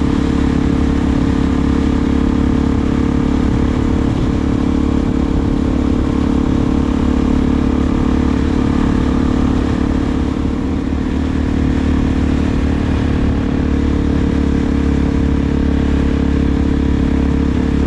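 Suzuki DR-Z400SM's single-cylinder four-stroke engine through a Delkevic aftermarket exhaust, running at a steady speed with an even engine note that eases slightly about ten seconds in.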